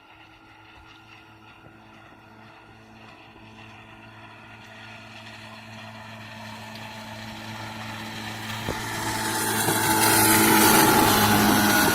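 Yamaha 15 hp four-stroke outboard motor running at a steady pitch on a small jon boat, growing steadily louder over about ten seconds as the boat comes closer. Near the end a rush of water and wind rises with it.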